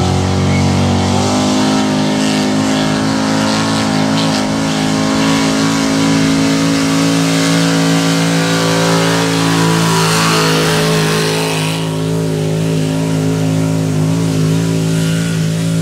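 Pro stock pulling pickup's engine at full throttle under the load of a weight-transfer sled. It climbs in pitch in the first second, then holds a steady high rpm through the rest of the pull.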